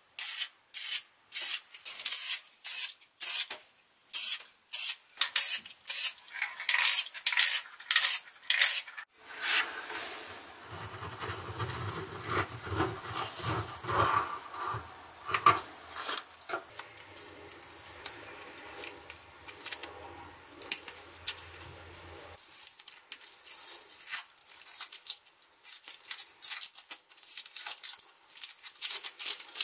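Aerosol spray-paint can sprayed in short bursts, about two a second, for several seconds. Then crinkling and rubbing as the paper masking is worked and peeled off the metal tongs, with small metallic clicks and a low hum under part of it.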